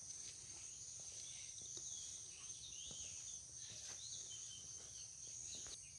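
Faint outdoor ambience: a steady high-pitched insect drone, with a few soft bird chirps in the middle.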